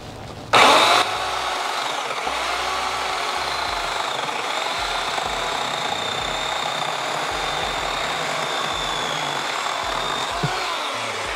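Craftsman 14-inch 8-amp corded electric chainsaw switched on about half a second in, loud at first, then running at a steady whine as it cuts through a wooden 4x4 post. It stops near the end, the post sawn through easily.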